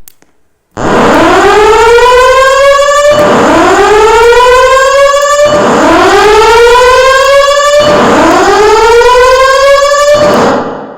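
Fire alarm voice-evacuation system sounding its whoop tone: four rising sweeps, each a little over two seconds long, repeated back to back. It is the evacuation signal that comes before a recorded announcement telling occupants to leave the building.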